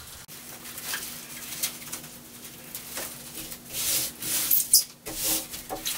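Bubble wrap crinkling and rustling as it is pressed and smoothed by hand onto a wet window pane, in irregular crackles that are loudest about four to five seconds in.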